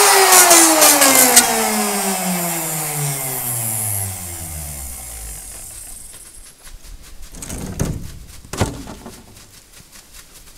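A handheld power cutting tool switched off after a cut, its motor whine falling steadily in pitch and fading over about five seconds as it spins down. Later come two sharp knocks about a second apart.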